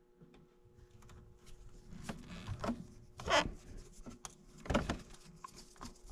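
A hand screwdriver turns a small screw into a Honda Goldwing GL1500's radiator. Soft rubbing and light clicks come from the tool and hands working against the parts, with two louder scrapes or knocks about three and five seconds in.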